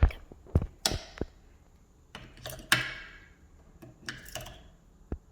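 Scattered sharp clicks and light knocks of hard objects being handled, about seven in all, some with a brief scrape.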